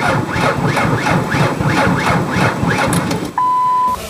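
Car starter motor cranking the engine over and over, about three turns a second, without the engine catching: the long cranking of a hard-starting engine. Near the end a steady beep lasts about half a second.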